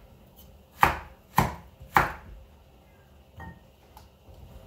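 Knife chopping carrots on a wooden cutting board: three sharp chops about half a second apart, starting about a second in, then one softer knock later.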